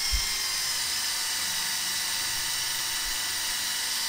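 Handheld power drill running at steady speed with a 7/32 twist bit, boring into a broken, thread-locked screw in a steel block: a high, even motor whine.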